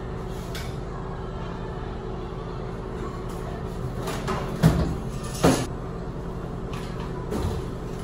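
Wall-mounted plastic fold-down baby changing table being pulled open, with two loud clunks about a second apart midway and a softer knock near the end, over a steady low hum.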